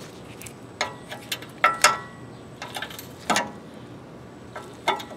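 Needle-nose pliers working a steel cotter pin in a castellated ball-joint nut: a few irregular sharp metallic clicks. Two come close together about two seconds in, with a short metallic ring.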